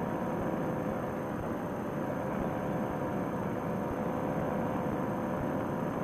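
Two-stroke paramotor engine and propeller running at a steady cruise with wind noise, heard muffled through a Bluetooth headset microphone.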